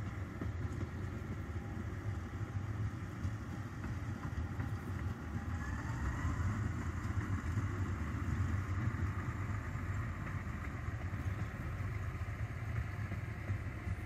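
Narrow-gauge diesel railcar running along the line at a distance: a low, steady engine rumble.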